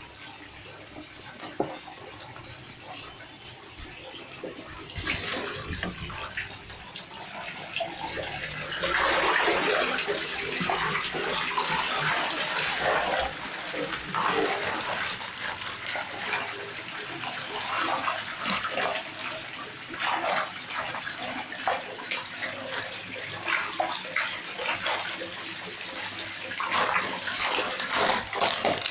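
Red tilapia and other fish thrashing in a hand net at the water surface, throwing up repeated irregular splashes. The splashing is light at first and turns heavy about nine seconds in.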